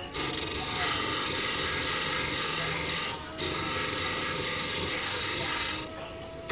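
A hand file rasping against a small brass piece spinning in a hobby lathe, a steady scratchy rub that breaks off briefly about three seconds in and stops near the end, leaving the lathe's steady motor hum.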